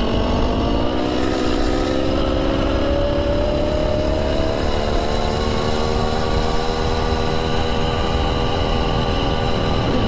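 Small two-stroke engine of a motorized gas-electric hybrid bicycle running under way. Its pitch rises over the first four seconds or so as the bike picks up speed, then holds steady, with wind rumbling on the microphone.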